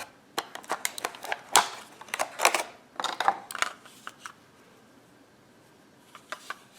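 Handling noise from the small plastic handheld mouse and its parts: a quick run of clicks and short rustles for about four seconds, then a few faint clicks near the end.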